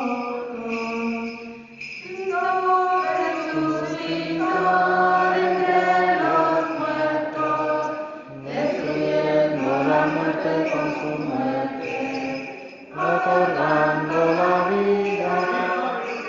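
Voices chanting an Orthodox Paschal hymn in sung phrases that hold and step between notes, with brief breaks between phrases about 2, 8 and 13 seconds in.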